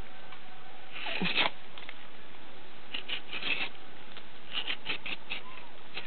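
A knife scraping and shaving through rubber-tree bark in three bouts of quick short strokes, tapping the tree to open a groove for the latex to run.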